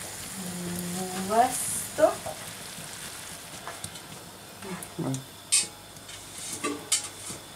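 A large frying pan of Pad Thai sauce and ingredients sizzling on the stove, with a few sharp clicks in the second half.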